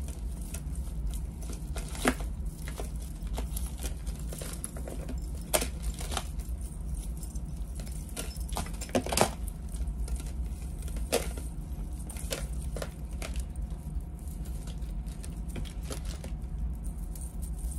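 Small metal jewelry chains and charms clinking and rattling as they are handled and untangled, with sharp clicks scattered throughout, over a steady low hum.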